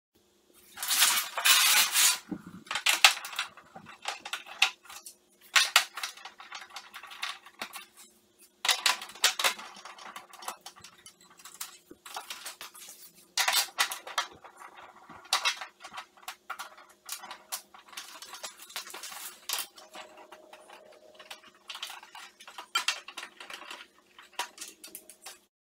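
Screws being taken out of the plastic back cover of a CRT television: repeated bursts of metallic clinking and scraping from the screwdriver and screws, over a faint steady hum.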